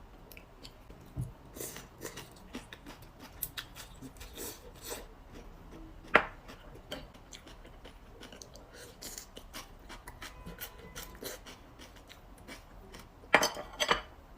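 Scattered light clicks, taps and rubbing of someone eating a meal and handling utensils and food, with one sharp click about six seconds in and a short burst of louder scraping near the end.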